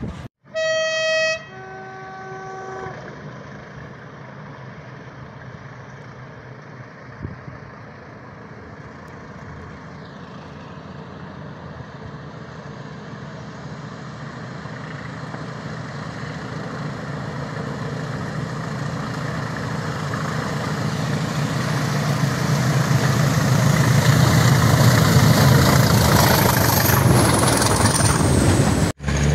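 Diesel locomotive's two-tone horn, a high note then a lower note of about a second each. Then a diesel locomotive's engine under load, growing steadily louder over some twenty seconds as the train draws near and passes close by.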